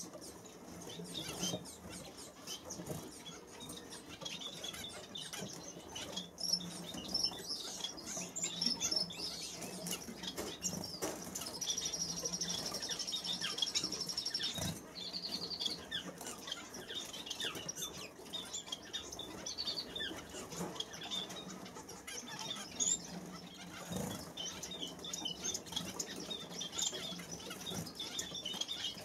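Masked finches in a wire cage calling with many short, high chirps, with a rapid buzzy trill about twelve seconds in that lasts about three seconds. Light taps and wing flutters come from the birds moving about the cage.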